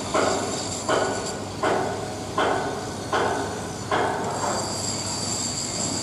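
Hammer blows on the steel securing pins under a tower crane's operator cab, knocking the pins out: six ringing metallic strikes, one about every three-quarters of a second, then a pause after about four seconds.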